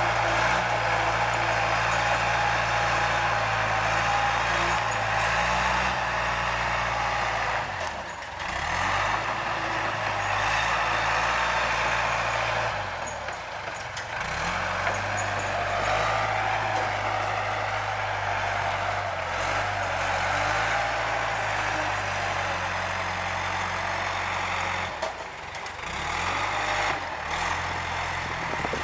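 Diesel bulldozer working, its engine running under load and easing off and picking back up a few times, with a steady mechanical clatter and hiss over the engine note.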